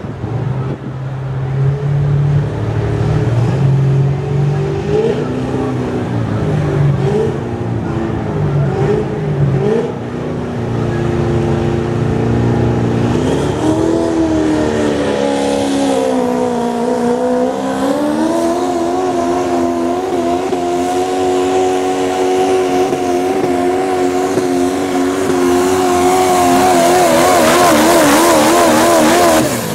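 Chevrolet diesel pulling truck's engine revved in short blips, then held at high revs under full throttle as it pulls the sled down the track, with a brief dip in pitch partway through. Near the end the engine note wavers quickly.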